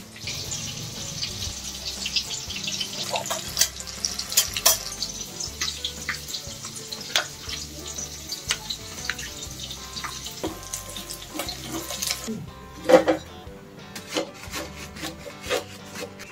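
Food sizzling and crackling as it fries in hot oil in a small pan, which stops abruptly about twelve seconds in. A few sharp knocks and clicks of utensils follow, the loudest a second later.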